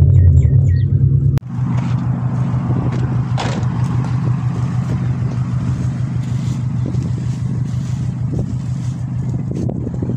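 Straight-piped Subaru Impreza WRX's turbocharged flat-four running with a steady, deep exhaust rumble. About a second and a half in, the sound cuts abruptly from the louder note inside the moving car to a steady idle heard from outside the car.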